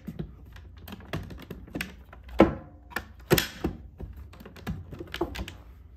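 Hands working a StopBox quick-access handgun box, pressing its mechanical push-button plungers and handling the hard plastic lid: a string of irregular clicks and knocks, the loudest about two and a half and three and a half seconds in.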